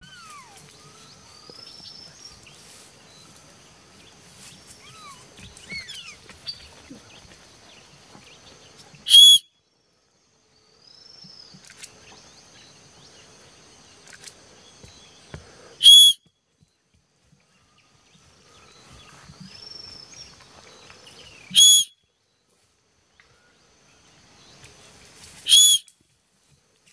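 Four short, loud, high-pitched whistles, several seconds apart, over faint twittering birdsong; the sound drops out abruptly after the first three.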